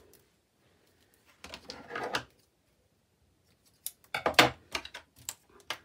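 Thin double-sided tape being run off its plastic reel along a thin strip: a short rasp, then a cluster of sharp clicks and taps from about four seconds in as the reel and strip are handled on the table.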